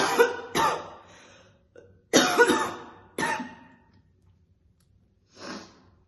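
A woman's heavy smoker's cough, harsh and rough: two coughs, a short pause, then three more, and a softer breath near the end.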